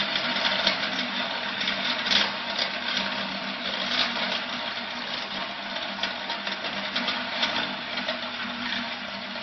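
Wood crusher running with a steady hum while wood chips are fed in and smashed to sawdust, giving a dense rattle of pieces. The rattle is thick for the first few seconds and thins out in the second half.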